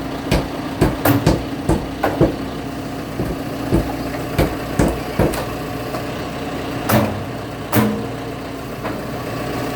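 Heavy machinery engine running steadily, with a series of sharp knocks and clanks over it, the two loudest about seven and eight seconds in.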